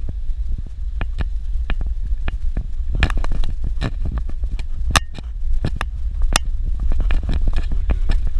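Vehicle driving on a rough dirt road: a steady low rumble with frequent knocks and rattles from the bumps, the sharpest about three and five seconds in.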